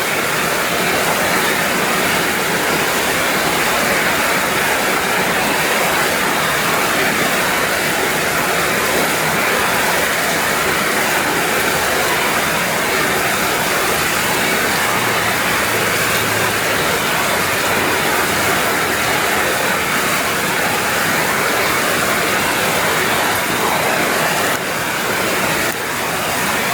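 Heavy rain falling steadily: a dense, even hiss of drops, dipping a little in loudness for about a second near the end.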